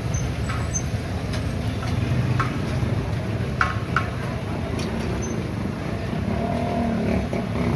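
Street ambience dominated by a steady low rumble of traffic, with a few short sharp metallic clicks about two and a half, three and a half and four seconds in.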